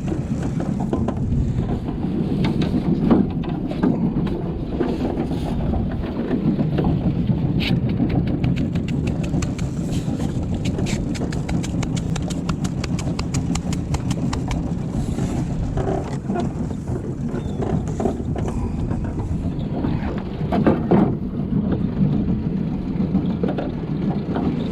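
Boat motor running steadily under wind and water noise, while a fishing reel clicks in a fast run for several seconds midway as a hooked salmon is fought.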